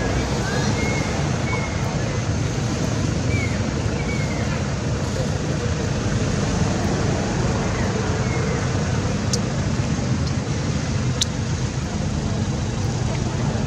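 Steady outdoor background noise, a low rumble with hiss, like wind over the microphone or distant traffic. A few faint short chirps sound in the first seconds, and two sharp clicks come near the end.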